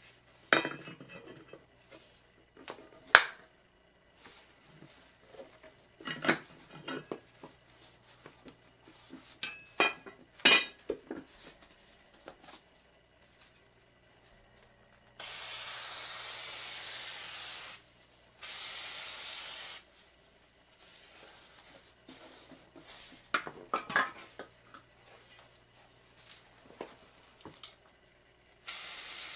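Metal tools clanking as a mini tire changer's steel bar is fitted and worked on a mower wheel. An aerosol spray can then hisses in two sprays of a couple of seconds each, and again briefly near the end, as it sprays the tire bead.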